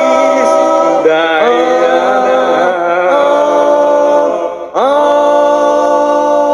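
Four-part a cappella doo-wop harmony, every part sung by the same male singer and layered together, holding sustained chords with sliding swoops between them. About four and a half seconds in the voices briefly drop out, then slide up into a new chord that is held.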